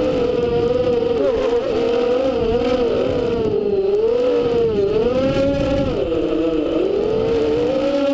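FPV quadcopter's brushless motors whining, the pitch swinging up and down continually with the throttle.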